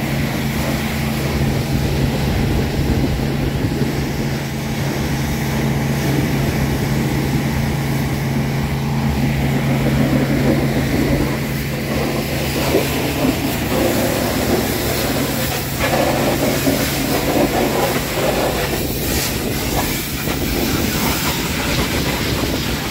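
Pressure washer running: a steady motor hum under the constant hiss of the water spray. The hum drops away partway through, while the hiss carries on.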